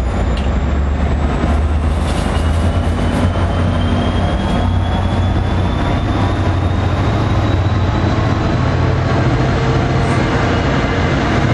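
NJ Transit commuter train's coaches rolling past close by as the train pulls out of the station, a steady low rumble, with a faint whine rising slowly in pitch as it picks up speed.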